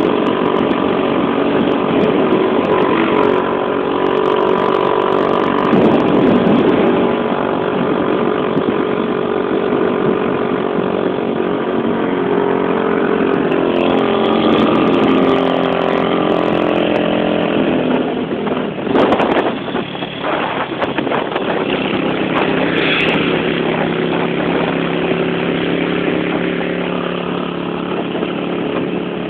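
Motorcycle engine running while riding, its note stepping up and down several times with throttle and gear changes, over road and wind noise. The engine note drops briefly about two-thirds of the way through.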